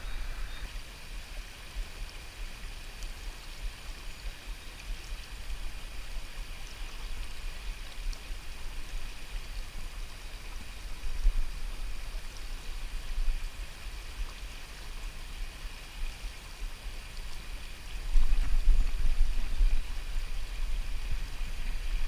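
Shallow river flowing over rocks in a riffle: a steady rush of running water, with a low rumble that grows louder about eighteen seconds in.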